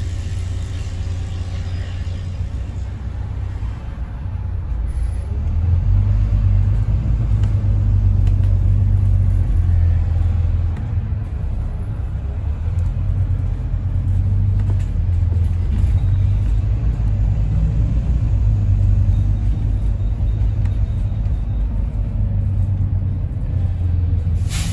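Double-decker bus engine and drivetrain heard from inside on the upper deck: a steady low rumble while the bus drives along, growing louder about five seconds in.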